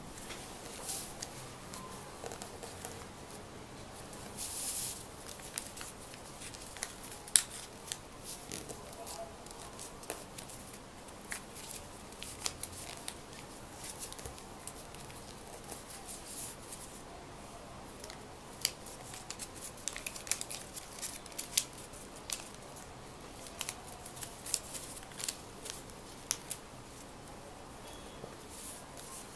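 Scissors cutting paper in a run of short, irregular snips, with the rustle of the sheet being handled. There is one longer rasping cut or tear about four and a half seconds in, and the snips come more thickly in the second half.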